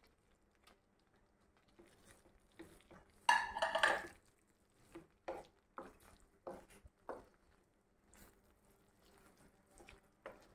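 Spatula scraping and knocking against a plate and a frying pan as fried prawns are pushed into thick masala and stirred. There is one loud scrape about three seconds in, then a run of short knocks and scrapes.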